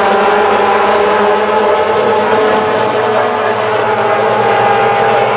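Several Mazda MX-5 race cars' four-cylinder engines running hard as they pass, a few engine notes overlapping at a fairly steady pitch.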